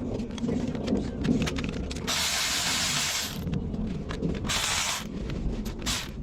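Light clicks and knocks of tools and engine parts being handled, broken by three bursts of hissing, the longest a little over a second.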